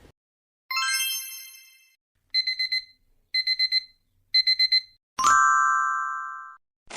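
A string of electronic sound effects: a bright chime rings out and fades, then three quick bursts of about five rapid high beeps each, a second apart, as from a digital alarm clock, then a second, lower ding that holds and fades away.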